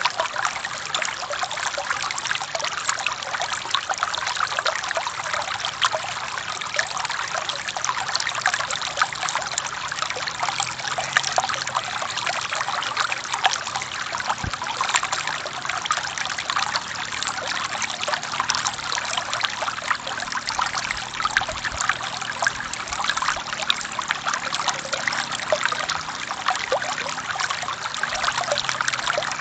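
Shallow forest stream flowing and trickling over rocks, a steady bubbling splash with many small droplet sounds.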